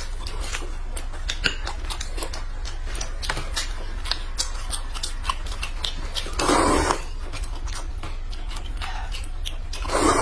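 Close-up eating sounds: a rapid scatter of small wet clicks from chewing and lip-smacking. A loud slurp of noodles comes about six and a half seconds in, and another comes right at the end.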